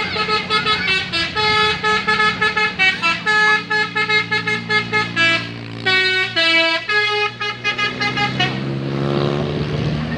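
A bus's telolet basuri musical horn playing a quick melody of short, pitched horn notes, with a brief break about two-thirds of the way through, over the engine's steady low hum. Near the end the horn stops and the engine speeds up, its pitch rising steadily.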